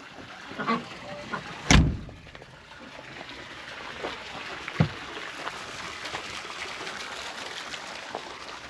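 A door banging shut about two seconds in, with a smaller knock a few seconds later, then a faint steady hiss with light scuffs and clicks.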